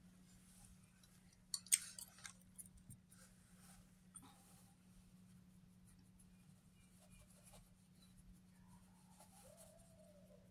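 Near silence with a faint steady hum, broken by a few small sharp clicks and smacks about two seconds in and some fainter ticks a little later.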